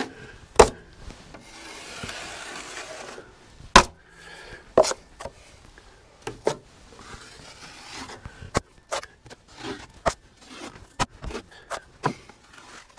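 Drywall knife spreading and smoothing a wet coat of joint compound over a taped seam: soft scraping strokes broken by a dozen or so sharp clicks and taps.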